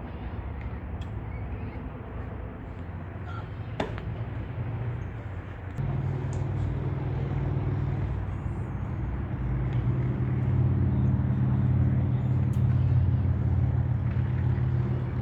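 A motor vehicle's engine running steadily with a low hum. It gets louder about six seconds in and again around ten seconds. A single sharp click comes about four seconds in.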